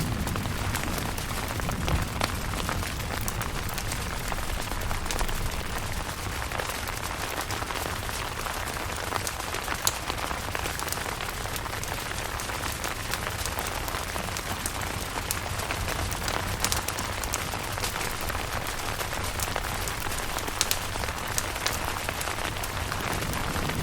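Steady rain falling on a camping tent, with many individual drops tapping sharply on the fabric. A low rumble fades out in the first seconds and rises again near the end.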